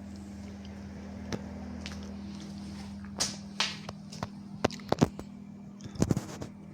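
A steady low electric hum with a series of sharp clicks and knocks, thickest in the second half. The hum cuts off abruptly at the very end.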